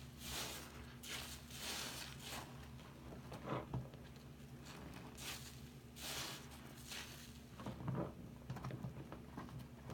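Soap-soaked sponges squeezed and kneaded by hand in a sink of foamy water: wet squelching and crackling suds, in repeated squeezes a second or so apart.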